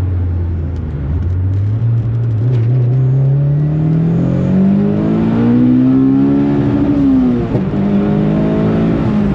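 Turbocharged Honda K20 four-cylinder engine accelerating on low boost, heard from inside the car: its pitch climbs steadily for several seconds, then drops sharply about seven seconds in at an upshift and carries on lower.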